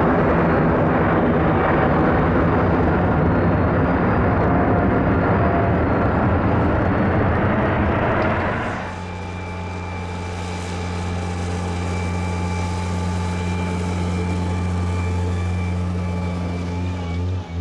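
Jet airliner engines running at high power, a loud steady rush of noise that cuts off abruptly about nine seconds in. A quieter steady hum with several droning tones follows.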